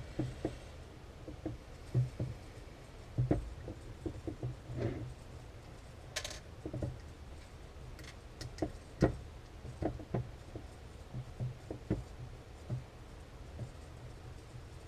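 Scattered light clicks and taps from an airsoft V2 gearbox and its Torx screwdriver being handled during disassembly, with a brief rasp about six seconds in.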